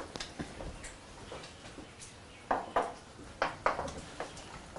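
Wooden spatula stirring vegetables in sauce in a wok, knocking and scraping against the pan in a series of short strokes that come thickest in the second half.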